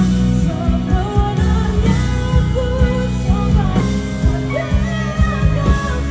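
Female singer singing live into a handheld microphone, her voice gliding between held notes over backing music with a steady drum beat and bass.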